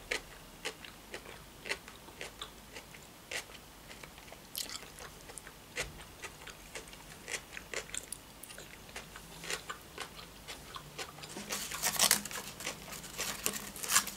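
Close-miked mouth chewing a mayonnaise crab salad with crunchy raw cabbage and cucumber: irregular wet crunches and mouth clicks, denser and louder near the end as a new forkful is chewed.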